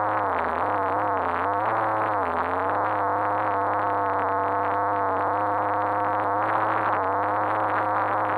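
RC car's motor running, heard muffled through the onboard action camera's fully sealed housing. Its pitch dips and recovers a few times in the first two seconds, then holds steady.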